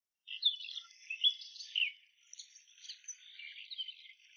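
Small birds chirping and singing: quick, high, down-slurred notes from several birds overlapping.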